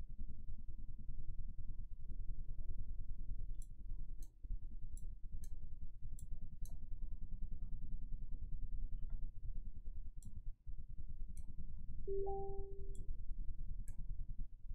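Sharp clicks scattered over a low steady rumble, with one short low beep about twelve seconds in.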